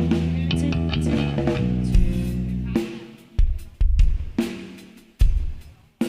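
Live band music: drums, bass and guitars play together, then break into about five separate accented hits on kick drum and cymbals, each left to ring and fade.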